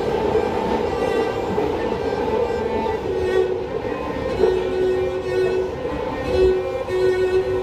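Cello bowed in a slow melody of long held notes, over the low rumble of the train car.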